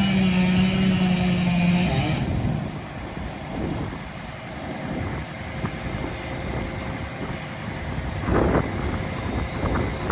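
SG280 grapple saw's chain running at speed with a steady high-pitched whine, cutting off abruptly about two seconds in. After that the crane truck's engine and hydraulics run low and rough, with a short burst of noise about eight seconds in.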